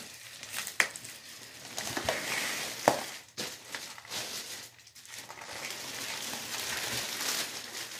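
Large clear plastic packaging bag crinkling and rustling as it is gripped and pulled, with two sharp clicks about two seconds apart.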